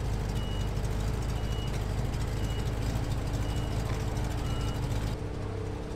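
Jaguar E-Type coupé's engine running as the car moves off slowly, a deep steady rumble. Over it, a short high electronic beep repeats about once a second. About five seconds in the sound changes abruptly and the rumble falls away.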